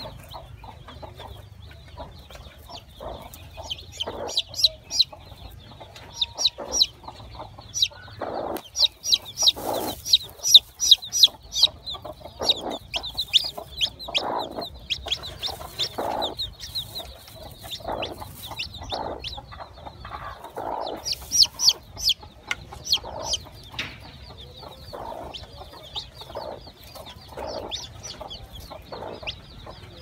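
Broody hen clucking over her newly hatched chicks while they peep. Low clucks come every second or so under runs of short, high peeps, busiest in the middle.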